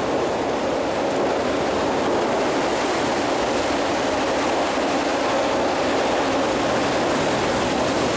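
Steady rushing of creek water, an even unbroken noise.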